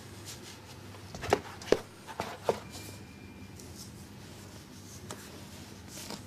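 Quiet room tone with four soft knocks and rustles in the first two and a half seconds, the loudest a little under two seconds in.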